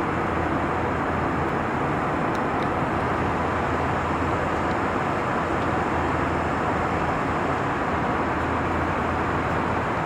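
Steady cabin noise of an Airbus A321 in flight, an even roar of airflow and jet engines at a constant level.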